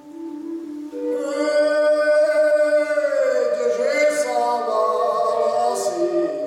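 Men singing a folk song together in several voices, a higher part coming in about a second in, with a slow downward bend in the melody around the middle.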